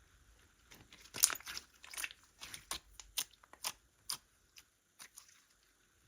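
Slime being mixed by hand, giving a run of about a dozen sharp, sticky pops and crackles. The loudest comes about a second in, and they thin out toward the end.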